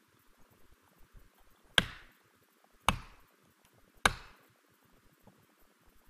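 Three hard strikes of a hand tool into wood, about a second apart, each sharp with a short ringing tail.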